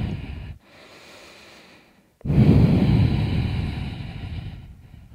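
A woman breathing deeply and audibly: one breath fades out about half a second in, and after a short lull another loud breath starts about two seconds in and slowly fades.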